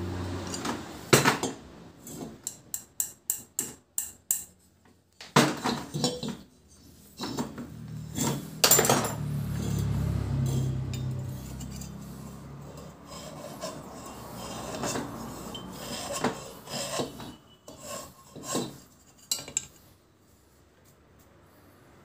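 A homemade valve-seat cutter scraping metal in the valve seat of an old Royal Enfield Bullet cylinder head. It starts as a quick run of short rasping strokes, then longer scrapes, then scattered strokes and clicks. The cutter is trimming the over-wide side of an unevenly worn seat whose poor seating let compression leak.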